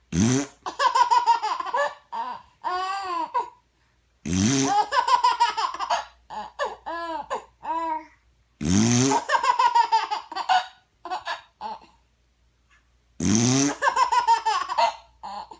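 A short fart noise rising in pitch, heard four times about four seconds apart. Each one is followed by a run of a baby's bursts of laughter.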